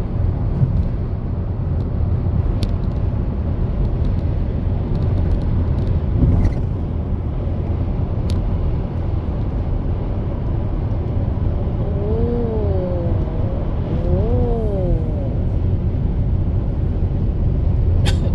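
A steady, loud low rumble, heaviest in the bass. About 12 seconds in, two short wavering tones rise and fall over it.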